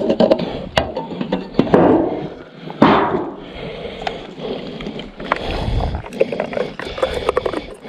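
Handling noise: irregular plastic and metal clicks, knocks and scrapes as a fuel can is capped and set down on a wooden table and a Stihl leaf blower's fuel cap is worked, with louder knocks about two and three seconds in. The blower's engine is not running.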